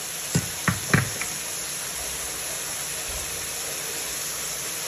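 Mushrooms and onions sizzling in a frying pan, a steady hiss, with a few short knocks in the first second or so.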